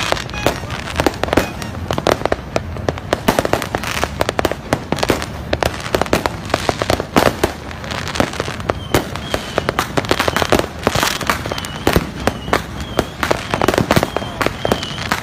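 Fireworks bursting in a dense, continuous barrage of sharp bangs and crackling pops, several a second.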